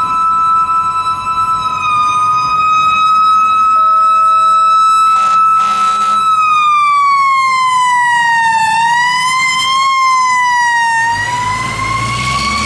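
Fire engine siren, with a steady high whine held for about six seconds that then slides down, rises a little, dips and climbs again. Two short horn blasts come about five seconds in. The low rumble of the fire engine's diesel engine comes up near the end as it passes close by.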